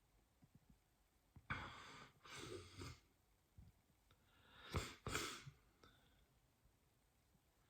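A person with hiccups breathing out in soft sighs, twice, then a small sharp hiccup just under five seconds in, followed by another breath.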